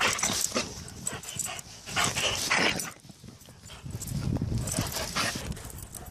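Dogs playing excitedly in snow, making dog noises in short, irregular bursts.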